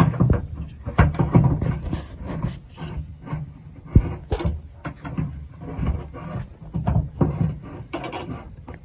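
Tailgate latch assembly being handled and fitted back into a pickup's tailgate: irregular scraping, rubbing and clicking of metal and plastic parts, with a sharp knock about four seconds in.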